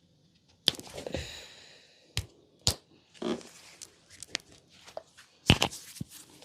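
Head and upper-body massage: four sharp impacts from the masseur's hands, the first and last loudest, with rubbing and scrubbing over skin and hair between them.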